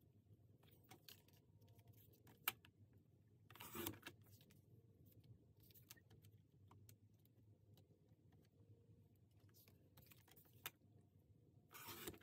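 Faint paper-crafting sounds: a sliding paper trimmer's blade cutting through paper in two short scratchy strokes, about four seconds in and near the end, among light ticks and clicks of paper and plastic being handled.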